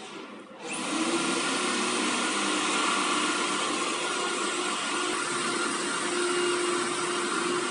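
Wood CNC router running, its spindle motor giving a steady whining rush with a few constant tones. The sound comes in under a second in, after a brief quieter moment.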